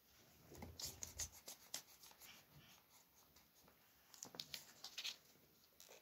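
Pencil strokes scratching on paper in two short bursts, one about a second in and another around four to five seconds in, with a soft low bump during the first.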